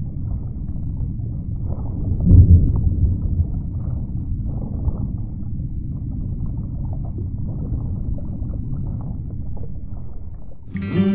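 Steady low rumbling noise, like water or wind, with a louder swell about two seconds in. Acoustic guitar music starts near the end.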